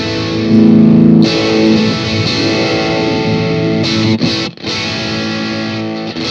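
Distorted electric guitar playing sustained chords, high-pass filtered on the desk. It is loudest about half a second in, and two brief breaks fall between chords, one past the middle and one near the end.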